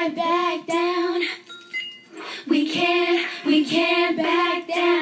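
A young girl singing a song in long, held notes, in two phrases with a short break a little under halfway through.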